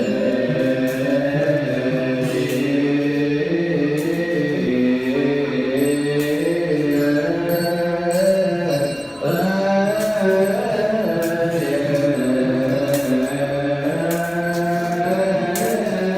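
Background music of slow, chant-like voices holding long tones that glide slowly between pitches, with a brief break about nine seconds in.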